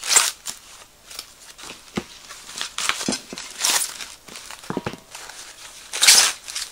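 Plastic bags rustling and crinkling as the fire bowl's metal legs are unwrapped by hand, in three louder bursts. Between them come a few short, sharp knocks as the metal legs are set down on the cardboard box.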